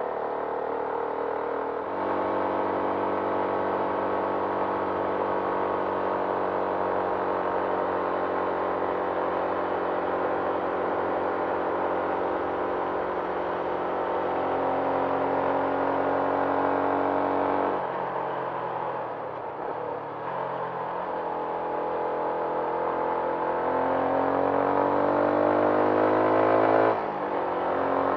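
Benelli TNT 150S motorcycle engine running under way at steady revs. The revs fall off about eighteen seconds in, then climb with a rising pitch until a sudden drop near the end, as at a gear change.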